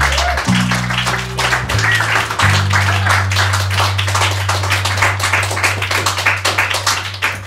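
Bass holding low notes, stepping between pitches a few times and then sustaining one note, under audience applause.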